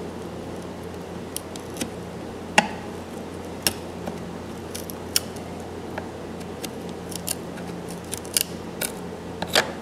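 Steel wood chisel paring a rabbet in a painted wooden door edge: irregular sharp clicks and snaps as chips of wood and paint split off, a dozen or more over several seconds. A steady low hum runs underneath.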